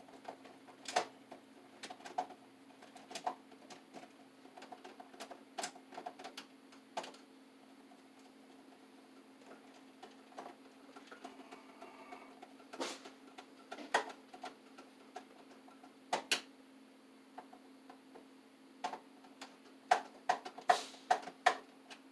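Irregular clicks and light metallic taps from handling electrical wire and tools at an open breaker panel, coming thicker near the end, over a steady low hum.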